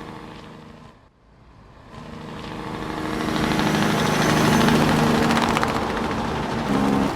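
Farm machinery engine running with a steady note, cut off briefly about a second in, then coming back and growing louder and rougher over the next few seconds.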